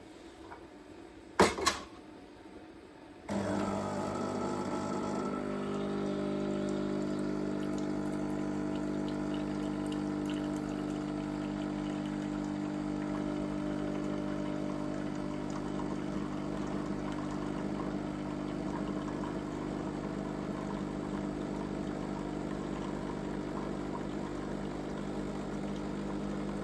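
A sharp click, then about three seconds in a coffee machine's pump starts and runs with a steady hum as it pushes water through the machine.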